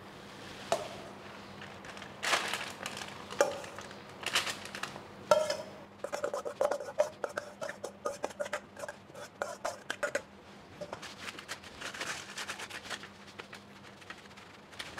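A metal spoon knocking and scraping inside a stainless steel mixing bowl as saucy marinated chicken wings are tipped out, the bowl ringing with a rapid run of scrapes in the middle, then softer scraping as the wings are spread out on parchment paper.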